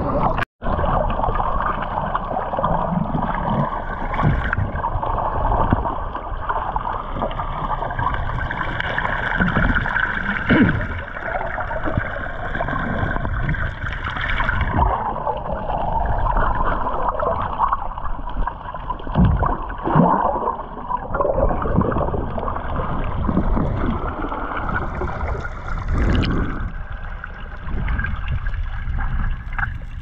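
Underwater sound picked up through an action camera's housing: muffled, continuous gurgling and rushing water, with a few brief louder knocks.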